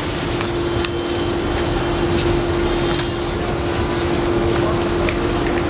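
Street ambience: a steady wash of road traffic noise with a steady mid-pitched machine hum, and a few faint clicks.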